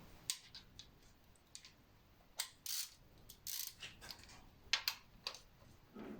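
Hand tools working on metal with the engine off: scattered sharp metallic clicks and clinks, with a few short rasping bursts between them.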